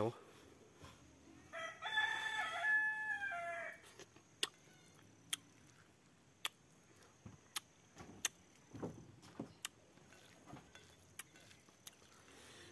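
A rooster crowing once, starting about a second and a half in and lasting about two seconds. After it come scattered sharp clicks and smacks of someone eating rice by hand.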